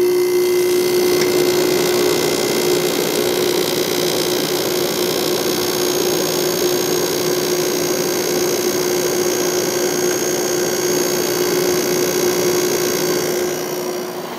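White-Westinghouse 5,000 BTU window air conditioner running with its LG compressor and GE fan motor on: a steady, loud hum over rushing air, easing slightly near the end. The compressor has just been started by its thermostat, with a heater warming the unit.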